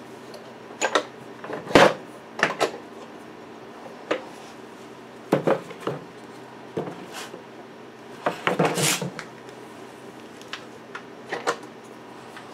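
Scattered knocks, bumps and scrapes of a large melamine board being shifted and set down on a wooden workbench, with a quick cluster of clatters about eight seconds in. A faint steady hum runs underneath.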